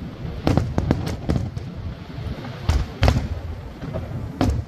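Aerial fireworks shells bursting: a run of sharp bangs at irregular intervals, several close together in the first second and a half, then more around three seconds in and one near the end.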